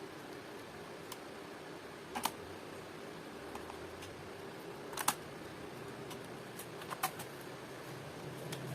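A few sharp, isolated plastic clicks on a laptop, spaced irregularly about a second or more apart, with the strongest near two, five and seven seconds in, over a steady low hum.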